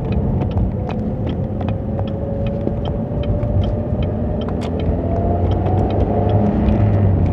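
2008 Pontiac Solstice's 2.4-litre four-cylinder engine, on its stock factory air intake, running while the car drives. It makes a steady low rumble with a tone that rises slowly in pitch through the middle as it picks up speed, and light ticks are scattered throughout.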